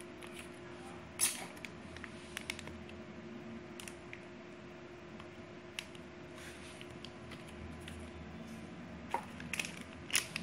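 Small plastic action-camera accessories and packaging being handled: scattered clicks and crinkles, with a sharper click about a second in and a few more near the end, over a faint steady hum.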